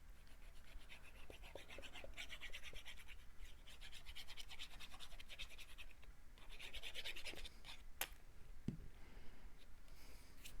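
Rapid scratchy rubbing on paper cardstock, in two spells, the first about three seconds long and the second about a second long, with a single sharp tap about eight seconds in.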